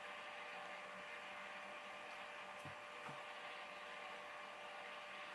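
Faint steady hum and hiss of room tone, with two soft knocks about half a second apart a little after halfway, from handling a plastic fan impeller.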